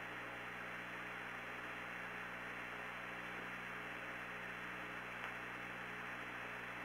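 Steady hiss and low hum of the Apollo 16 communications audio in a pause between transmissions, with no voices.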